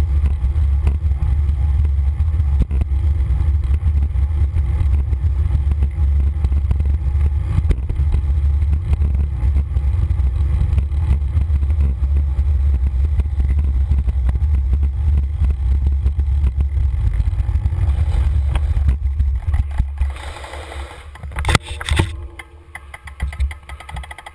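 Wind rumbling on a bicycle-mounted camera's microphone while riding. The rumble dies away about twenty seconds in as the bike slows to a stop, followed by a few short clatters.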